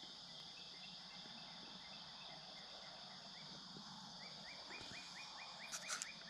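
Faint chorus of crickets and other insects trilling steadily, with a short rising chirp repeated over it that quickens to about five a second in the last two seconds. A few sharp clicks come near the end.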